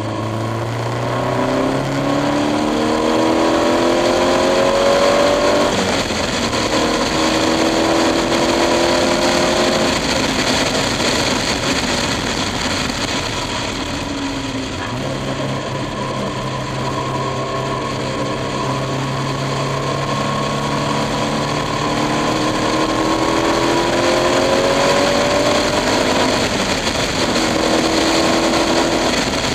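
Onboard sound of a KTM X-Bow accelerating hard around a race track: engine revs climb and drop back several times as it shifts up through the gears, easing off for a corner around the middle and again near the end. Steady wind noise from the open cockpit runs underneath.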